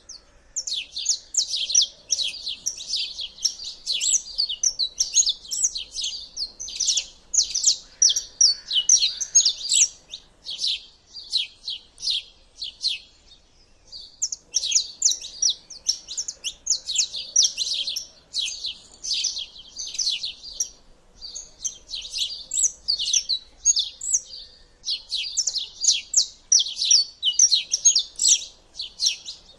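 Songbirds singing in fast runs of high, quick chirps and twitters, with a short break about ten seconds in and another about twenty-one seconds in.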